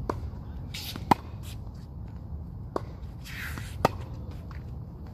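Tennis ball struck by rackets in a rally: two sharp, loud string hits, about a second in and just before four seconds, each preceded by a brief swish. Softer ball impacts fall between them.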